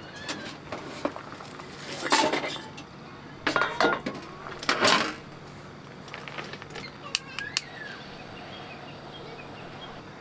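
Cookware and utensils clattering and clinking as they are handled, in a few loud bursts in the first half, then a few lighter clinks.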